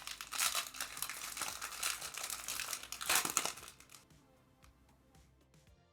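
Foil wrapper of a Panini Mosaic football card pack being crinkled and torn open: dense crackling that peaks about three seconds in and stops about a second later.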